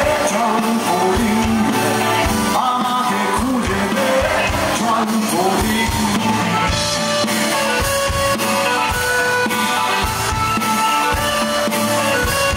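Live rock band playing: a male lead vocal over drum kit, guitars, bass and keyboard. The singing gives way to the instruments about halfway through.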